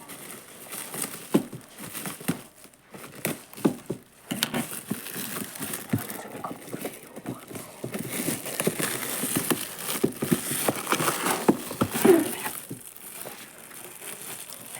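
Toy packaging being handled and opened by hand: crinkling and rustling of plastic and cardboard, with scattered clicks, knocks and short tearing sounds.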